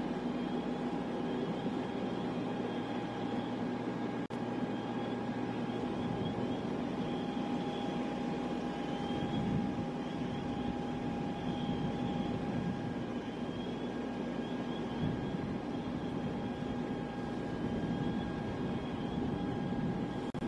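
Helicopter in flight: a steady noise with a constant whine running under it. The sound drops out for an instant about four seconds in.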